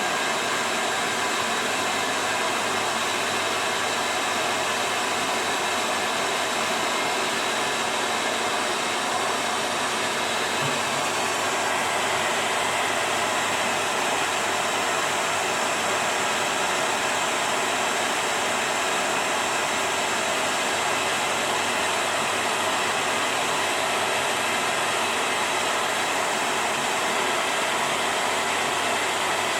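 Hair dryer running steadily on hot air, blowing on a plastic bottle sleeve to heat-shrink it onto a juicer part.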